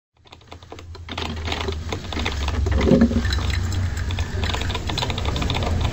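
Rapid, irregular computer-keyboard typing clicks over a low, steady hum, fading in during the first second.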